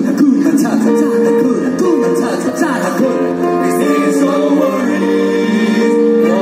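Live amplified performance: singers at microphones over a small string ensemble of violins and cello, with long held notes under the gliding vocal lines.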